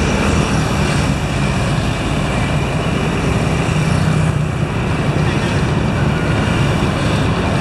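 Steady engine and road noise of a moving vehicle, heard from on board, with traffic around it.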